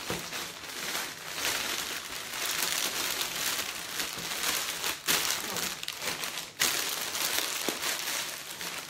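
Clear cellophane wrap crinkling and rustling as it is gathered and shaped by hand around a hamper, with two sharper, louder crackles about five seconds in and again a second and a half later.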